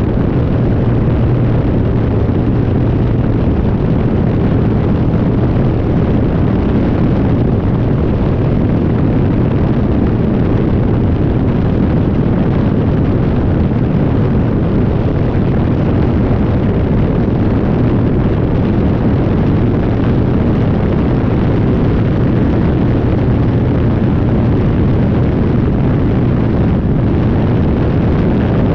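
Rotax 503 two-cylinder two-stroke engine of a Phantom X1-E ultralight running steadily, with heavy wind buffeting on the microphone.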